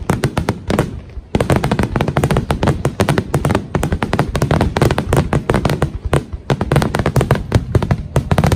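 Aerial fireworks going off in a dense, continuous barrage: many sharp bangs and crackles a second, with a brief lull about a second in.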